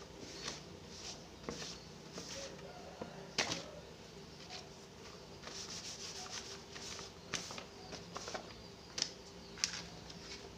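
A cloth rubbing and rustling over a banana leaf as it is wiped clean, with a few sharp clicks from the leaf being handled.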